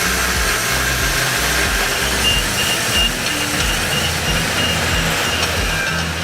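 Heavy mining machinery running steadily, with a warning alarm sounding a series of short, high beeps from about two seconds in.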